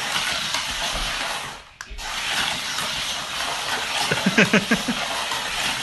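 Small battery toy car running through a clear plastic Zoom Tubes track, a steady rushing hiss with a short dip a little under two seconds in. A child's voice is heard briefly around four seconds in.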